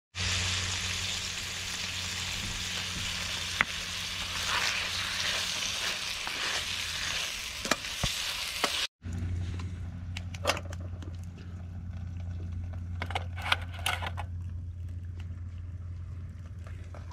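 Streaky bacon sizzling in a Trangia frying pan, stirred with a wooden spatula. About nine seconds in it cuts to eggs frying in butter: a quieter sizzle with scattered sharp pops of spitting fat, over a steady low hum.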